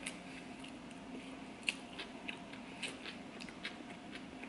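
Close-up chewing of a sushi roll: wet mouth clicks and smacks scattered irregularly.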